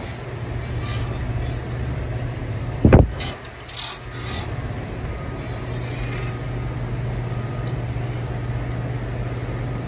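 Power grinder with a hoof-trimming disc grinding a cow's hoof: a steady motor hum with a rasping scrape over it. One loud thump about three seconds in.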